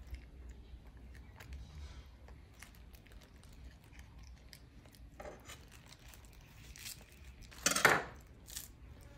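Small handling noises around watermelon pieces in a plastic bag on a wooden table: scattered soft clicks and rustles, then one brief, loud rustle of the plastic bag about eight seconds in.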